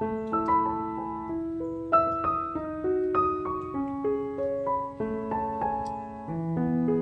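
Gentle solo piano music: a slow melody of struck notes over held lower notes.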